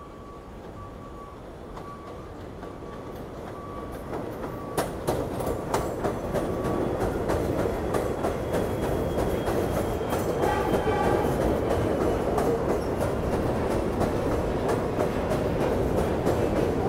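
R62 New York City subway train approaching along the elevated track and passing close by, growing louder, its wheels clacking over the rail joints, with a brief squeal about ten seconds in. A repeated beep, about two a second, sounds over the first several seconds.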